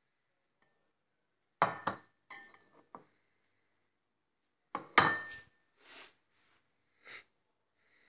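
Dishes and glasses clinking together as they are handled. Two loud clinks, one a little under two seconds in and one about five seconds in, each ring briefly, with softer knocks in between and after.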